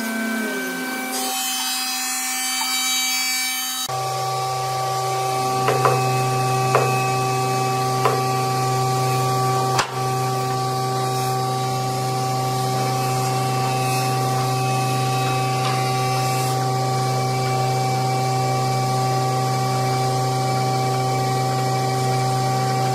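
Steady hum of a woodworking machine running, with four sharp wooden knocks between about six and ten seconds in.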